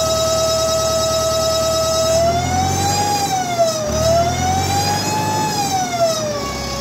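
Bulk feed lorry's blower, driven by its donkey engine, running with a loud whine over the engine's rumble. The whine holds steady, then rises and falls twice as the engine revs go up and down, settling lower near the end.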